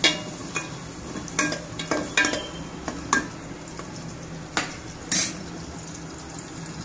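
A metal spatula scraping and knocking against the pot as chopped onions are stirred in hot oil, over a steady sizzle of the onions frying. The stirring strokes stop about five seconds in, leaving only the sizzle.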